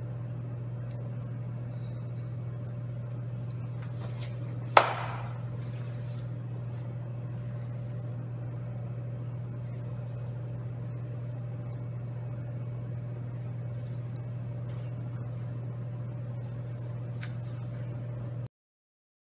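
Steady low hum of a small room, with one sharp knock about five seconds in; the sound cuts off abruptly near the end.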